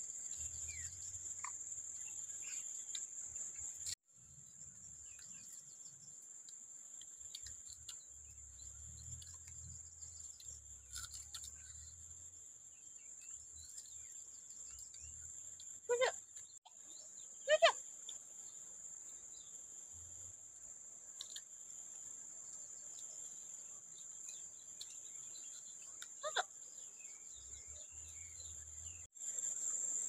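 Steady, high-pitched insect chorus buzzing without a break. A few short, louder wavering calls cut in around the middle and near the end.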